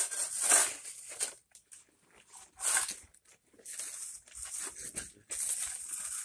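Gritty scraping of sand: a shovel scooping leveling sand and a paver block being worked into the sand bed, in about four irregular strokes with short gaps.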